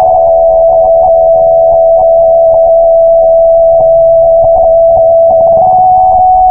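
Electronic music: a loud synth tone held on one pitch, with fainter tones around it and faint scattered clicks. The tone steps down slightly as it begins and back up near the end.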